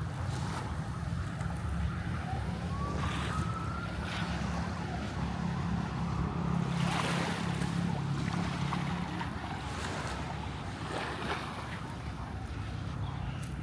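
Seaside ambience: waves washing on the shore with wind on the microphone, under a low engine drone from a boat that is strongest midway. A short thin tone rises in pitch about three seconds in.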